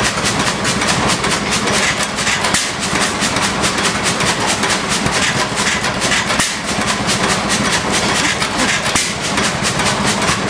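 Amanco 8 HP Mule Team horizontal petrol hit-and-miss stationary engine running, with a rapid, steady mechanical clatter.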